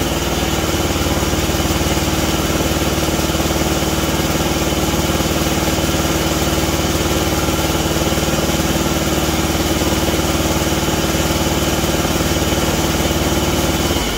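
Kawasaki FH500V V-twin engine on a riding mower running steadily on one cylinder. The right cylinder isn't firing, so the left one is doing all the work, a sign of no spark on that side: typically an ignition coil or plug wire chewed by mice.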